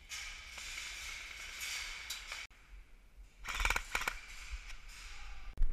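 Rustling of a player's gear and clothing as he moves, then a quick run of sharp mechanical clicks about three and a half seconds in, and a single sharp knock near the end.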